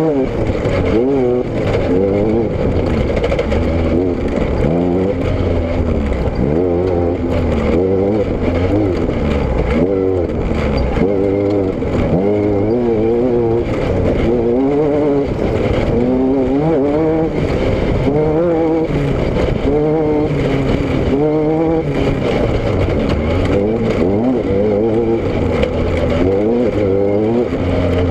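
Car engine and exhaust running under way, the revs rising and falling over and over every second or two.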